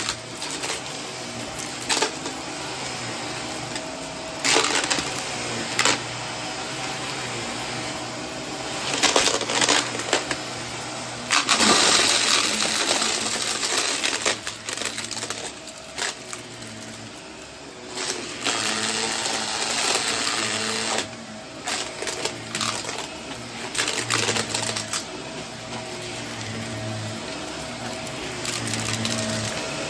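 Close-miked object handling for ASMR: scattered sharp clicks and taps, then a few seconds of dense rustling noise near the middle, over a steady low hum.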